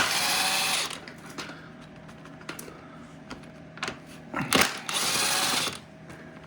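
Cordless drill-driver spinning bolts out of a hydrostatic transmission housing in two short runs, one at the start and one about four and a half seconds in.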